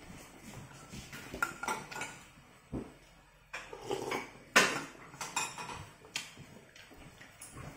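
Spoon clinking and scraping against a bowl while eating noodle soup: a string of separate light knocks, with one sharper clink about four and a half seconds in.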